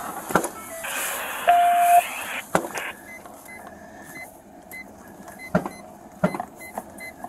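A patrol vehicle's electronic chime beeping quickly and evenly from about three seconds in, with a few sharp knocks of handling in the cab. Just before it comes a brief hiss carrying a steady tone.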